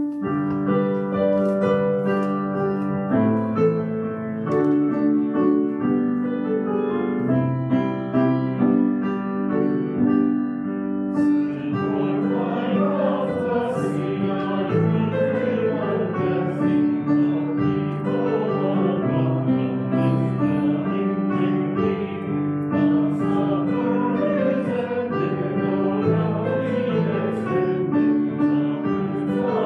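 Piano playing a hymn introduction, then a small congregation singing the hymn with the piano from about eleven seconds in.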